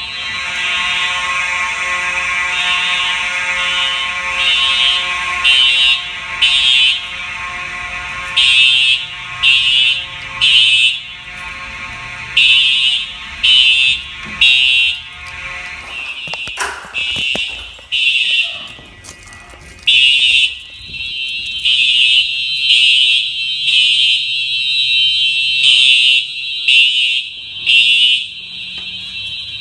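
Several Simplex fire alarm horns sounding together during a system signal test: loud, high-pitched horn blasts pulsing in groups of three in the temporal-three evacuation pattern, layered over a steady buzzing horn tone that cuts out about halfway through, with another continuous horn tone coming in soon after.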